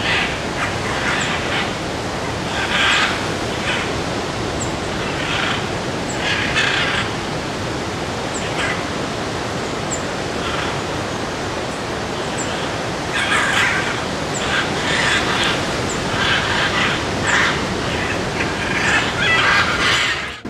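Scarlet macaws squawking in short calls every second or two, over a steady rushing background noise.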